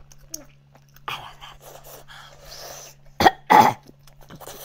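A man eating spicy goat bone marrow coughs twice in quick succession about three seconds in. Softer breathy mouth noises come before the coughs.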